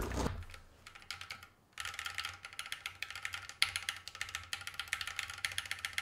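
Keystrokes on a Keychron Q1 aluminium keyboard fitted only on its WASD keys with unlubed Alpaca linear switches: a few separate clicks, then from about two seconds in a fast, steady flurry of key presses. The clacking is high-pitched because the board sits on a wooden table.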